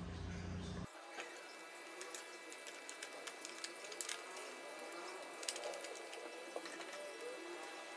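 A low steady hum that cuts off suddenly about a second in. After it come faint small clicks and rustling as hands handle the motorcycle's battery cables and terminal connections.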